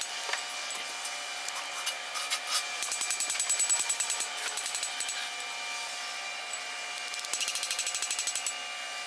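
Hammer rapidly tapping a cam bearing driver bar, driving a camshaft bearing into the cam tunnel of an LS engine block. The taps come in quick runs of several strikes a second, the busiest about three seconds in and again near the end.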